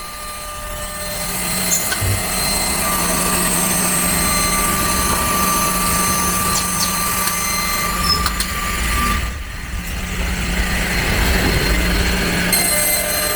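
CNC router's saw-blade spindle running and cutting a composite door panel: a steady high whine over cutting noise, dropping briefly about nine seconds in.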